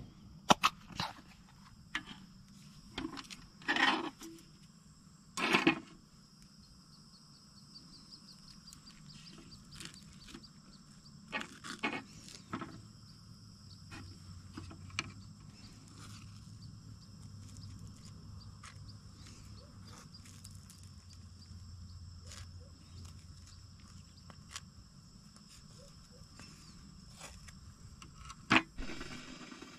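Handling clicks and short rustles from opening a plastic cream cheese tub and spreading the cream cheese on toast with a knife, busiest in the first six seconds and again around eleven to thirteen seconds, with a sharp knock near the end. A steady high insect chirring runs behind.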